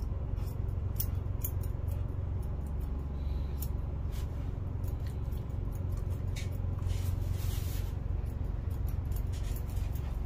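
Dog-grooming scissors snipping through a Lhasa Apso's coat in quick, irregular snips, over a steady low hum.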